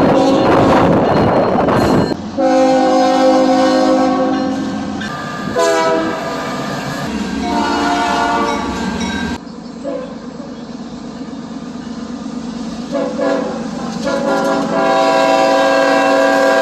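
Train horn sounding long blasts: a sustained blast from about two seconds in, briefly broken around six seconds, that drops away around nine seconds, then short toots near thirteen seconds and another long blast from about fourteen seconds in. Under the first seconds runs the rumble of the moving train.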